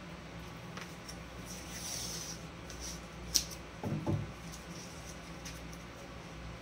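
A paintbrush swishing across a painted panel. About halfway through there is a sharp click, then a couple of soft knocks as the brush or paint is handled at the wooden ledge below the panel. A steady low hum runs underneath.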